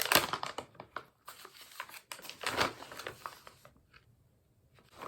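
Plastic snack bag crinkling and rustling as it is handled and opened, with irregular crackles, going quiet about four seconds in.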